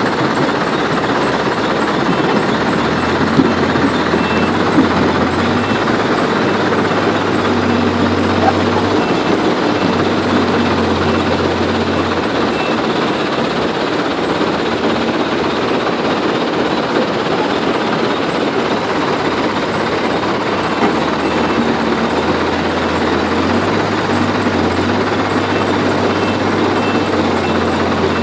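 Heavy diesel machinery of an excavator loading a dump truck, running steadily, with a deep hum that comes and goes and a few light knocks early on. A faint high beep repeats in stretches, like a reversing alarm.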